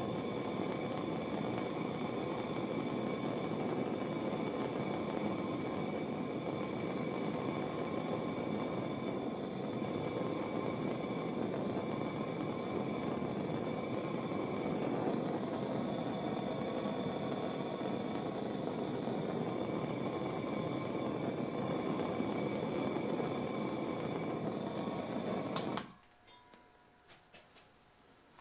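Steady rushing hiss with a few faint steady tones from the heat being played on a homemade screwdriver bit held in a vise, tempering its tip to blue. It cuts off suddenly near the end, leaving a few light metallic clicks.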